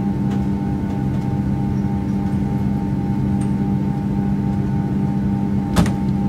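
Aircraft overhead luggage locker lid shut with one sharp clunk near the end, over a steady low hum.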